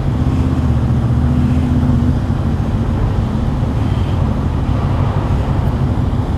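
Honda VFR800 sports-tourer's V4 engine running steadily at low revs as the motorcycle rolls slowly across a ferry's enclosed steel vehicle deck.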